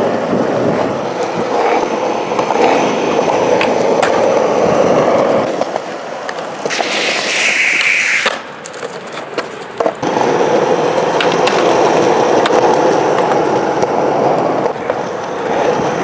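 Skateboard wheels rolling steadily over wet concrete, with small clicks from seams and cracks. About seven seconds in there is a short hiss, then a quieter stretch, a sharp knock, and the rolling picks up again.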